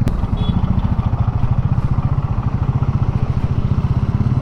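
Royal Enfield Meteor 350's single-cylinder engine running steadily while being ridden, heard from on the bike as an even, rapid pulsing beat.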